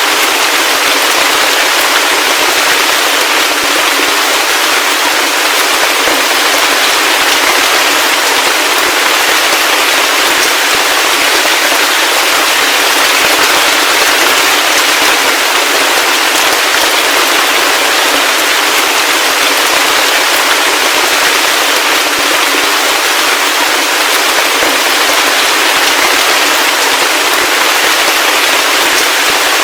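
Heavy rain falling steadily: a dense, even patter that stays the same throughout, with almost no low rumble.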